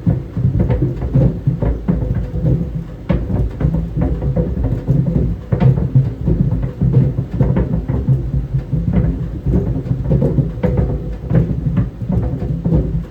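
Clothes dryer drum turning with a steady low rumble and a faint hum, while tennis balls tumble inside and knock irregularly against the drum, a few times a second.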